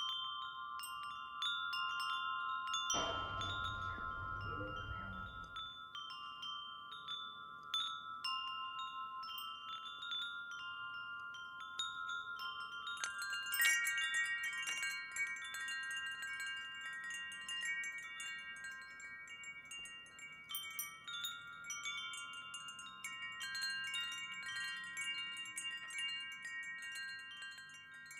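Wind chimes ringing: many clear, lasting tones struck at irregular moments, with a higher, busier set of chimes joining about halfway through. A short rush of low noise comes about three seconds in.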